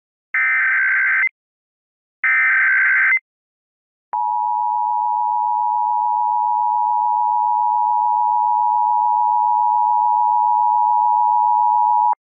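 Emergency Alert System tones: two roughly one-second bursts of SAME header data, separated by a short gap. About four seconds in, the steady two-tone EAS attention signal (853 and 960 Hz) starts and holds, the warning that an emergency alert message follows.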